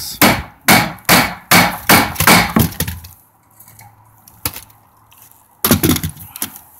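A quick run of about eight gritty scraping strokes on asphalt shingle roofing over the first three seconds, then a lull with a single click, and a few more strokes near the end.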